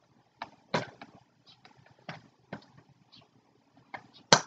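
Toy crossbow parts and their cardboard box being handled and unpacked: a string of scattered clicks, taps and rustles, with one sharp, loud knock near the end.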